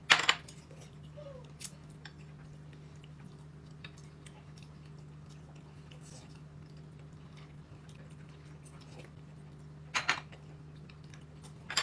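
Tableware clinking during a meal: a sharp knock right at the start, a lighter tap under two seconds in, and a pair of knocks near ten seconds, over a steady low room hum.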